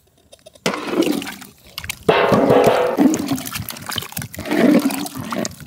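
Thick mutton curry sloshing and gurgling as it is stirred in a large iron kadai, starting abruptly under a second in.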